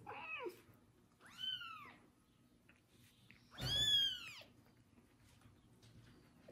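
A young kitten meowing loudly three times, each a high cry that rises and falls; the third, about four seconds in, is the longest and loudest. These are cries for comfort rather than hunger, as the owner reads them.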